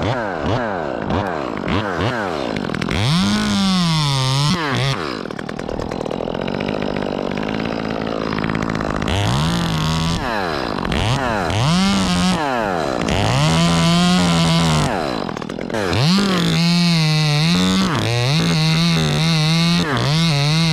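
Chainsaw revving up and down repeatedly, then holding a steadier, wavering speed under load while cutting through the tree's top.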